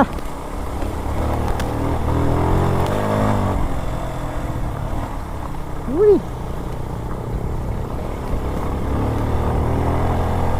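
Motorcycle engine running under load on an off-road trail, revving up and back down about two to three seconds in and again near the end. About halfway through comes a short, loud rising-and-falling hum-like sound.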